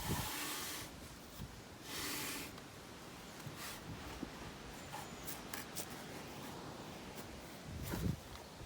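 Hand-tool scraping at hardened scale deposits in a Lister CS engine casting: two short scraping strokes, then a few light clicks and a soft thump near the end.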